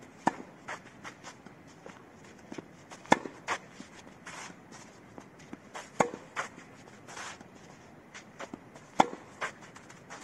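Tennis ball struck hard by a racquet about every three seconds during a baseline rally, with softer knocks between the hits and short scuffs of shoes sliding on the clay court.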